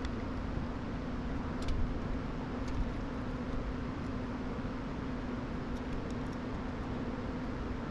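A steady low hum with hiss throughout, with a few faint small clicks at about 2 seconds, about 3 seconds and 6 seconds in.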